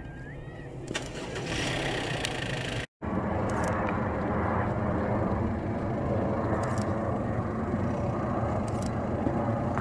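Jet engines of a Boeing 737 airliner on low final approach: a steady broad rumble that grows louder about a second in. The sound cuts out for a moment just before three seconds in, then carries on steady and loud.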